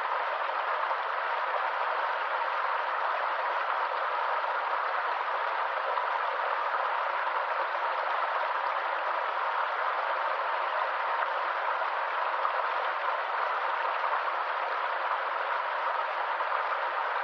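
Stream running: a steady rush of flowing water, even and unchanging, with no deep rumble.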